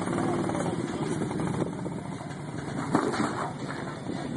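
Toyota pickup's engine running at low revs as the truck crawls slowly up a rock crevice, with one sharp knock about three seconds in.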